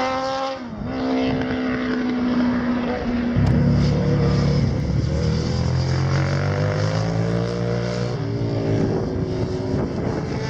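Racing motorcycles passing at speed, their engine notes sliding up and down in pitch. A loud, low engine note comes in about three and a half seconds in, and a rising note breaks off and starts again about eight seconds in.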